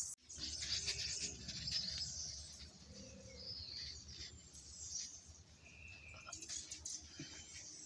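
Birds chirping in the background over faint outdoor ambience.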